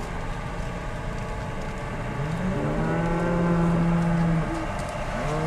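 Cattle on a drive mooing: one long, low moo about two seconds in and another starting near the end, over a steady low rumble.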